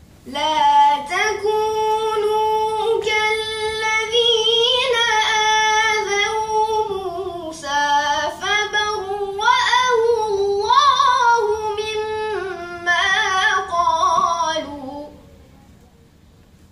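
A boy reciting the Quran in melodic tajweed style, holding long notes that bend up and down, heard off a television's speaker. The recitation breaks off about a second and a half before the end.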